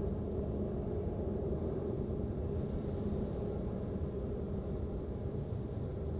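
Freight train rolling slowly through the rail yard: a steady low rumble with a faint hum.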